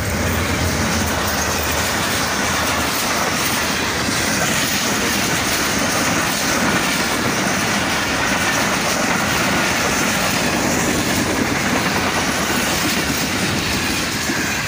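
Passenger express train passing close by at speed: carriage wheels clattering over the rail joints in a steady, loud rush. A low engine hum from the locomotive is heard through the first few seconds.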